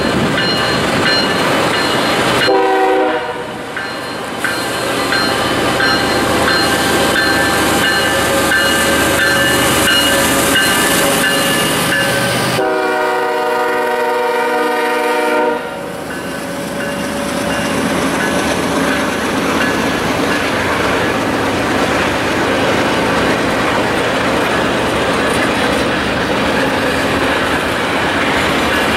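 Freight train passing with a continuous rumble and clickety-clack of gondola cars rolling by. Over it, the lead diesel locomotive's multi-chime air horn sounds twice: a short blast about three seconds in and a longer blast of about three seconds near the middle.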